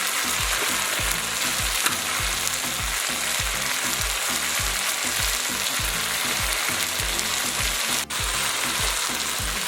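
Chicken curry with potatoes sizzling in hot oil in a pot, a steady frying hiss that cuts out for an instant about eight seconds in.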